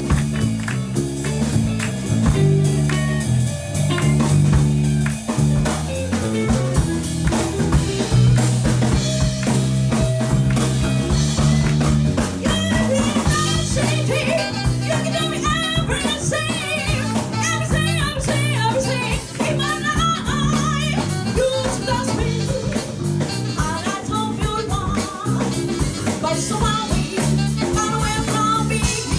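A live band playing a blues-flavoured number on drum kit, bass and guitar, with a wavering lead melody line coming in about halfway through.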